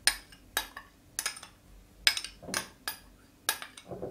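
Metal spoon tapping and scraping against a small glass bowl and a ceramic bowl as crushed garlic is knocked out into the spices: a dozen or so sharp, irregular clinks.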